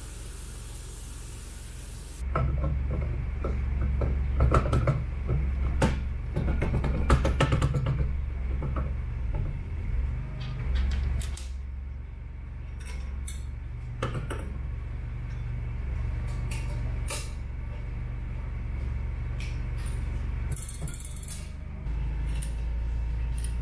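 A gas torch flame hisses steadily and is shut off about two seconds in. Then come metal clinks, clicks and knocks of hand tools on a Triumph 650 crank's heated flywheel as its bolts are run in with a ratchet.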